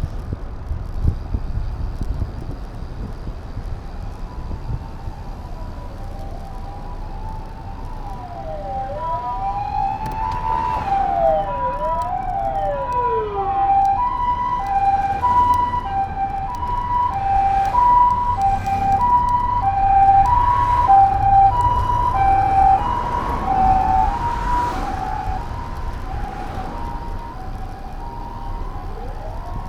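Emergency vehicle siren passing by. It first gives several falling wails, then switches to a high-low two-note pattern that grows louder to a peak about two-thirds of the way through and then fades as it moves away. Low wind and road rumble runs underneath.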